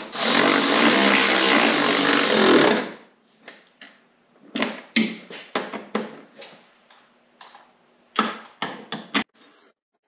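Cordless ratchet with an extension and 10 mm socket running for about three seconds as it drives a bracket bolt down. It is followed by a series of short bursts and clicks as the fastening continues.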